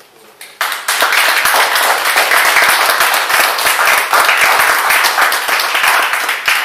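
Audience applauding, a dense patter of many hands clapping that starts suddenly about half a second in and begins to die down near the end.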